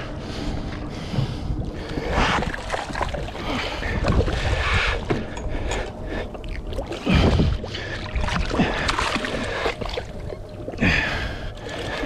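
A hooked mackerel tuna splashing and thrashing at the water's surface beside a boat, in irregular bursts, the loudest about seven seconds in.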